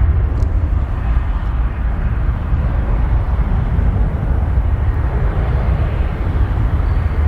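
Steady low rumble of jet aircraft engines.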